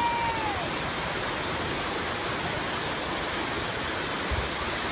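Steady rush of water pumped across a surf-simulator wave ride. About half a second in, a held high note drops in pitch and stops.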